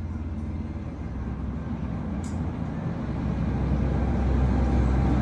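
A low rumbling noise that builds steadily louder, with no clear tone or rhythm.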